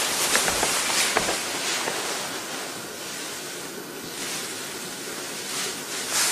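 A young man crying without words, his breaths coming as rushes of breath noise that swell and fade, heavier at first, easing in the middle and rising again near the end, with a few faint clicks.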